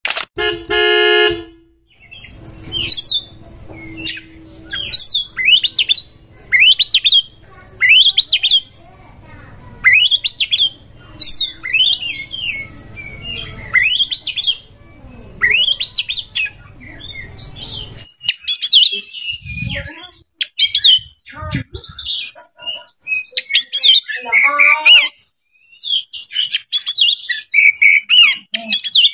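Oriental magpie-robin (kacer) singing: sharp, clear whistled notes repeated about once a second, then a faster, more varied warbling song near the end. A short electronic tone sounds at the very start, and a few low thumps come about two-thirds of the way through.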